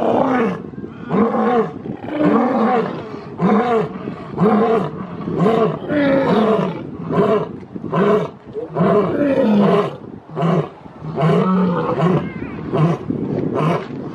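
Male lion roaring bout: a series of deep grunting roars about one a second, each rising and falling in pitch, growing shorter and quicker toward the end.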